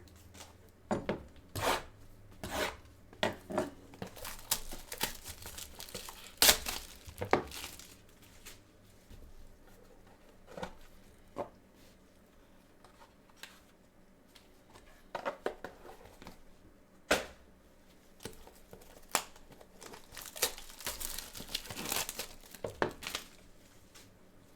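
Plastic packaging of a trading-card box being torn open and crinkled, in irregular clusters of sharp crackles, with a quieter stretch in the middle.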